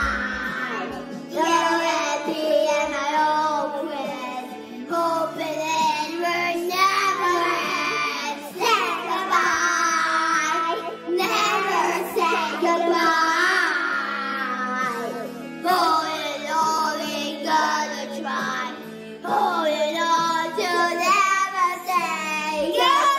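Two children singing into handheld karaoke microphones, with backing music playing steadily underneath.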